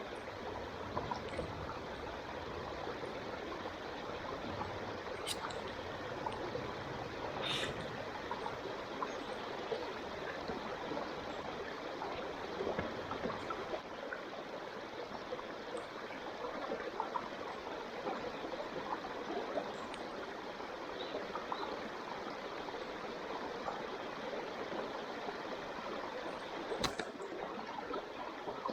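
Steady rush of flowing water, like a stream, with a few sharp clicks at intervals.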